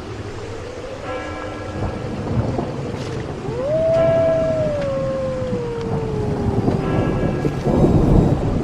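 Layered horror sound effects: a low, rumbling storm-like noise bed with a long eerie wail that rises sharply, then sinks slowly over several seconds. Short ringing tones come back about every three seconds.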